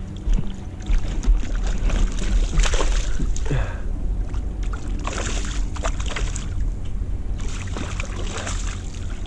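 Water splashing in several bursts over a steady low rumble of wind on the microphone.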